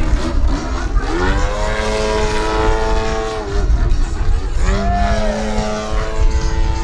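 Engine of a radio-controlled aerobatic airplane running at changing throttle, its pitch rising and falling in several sweeps.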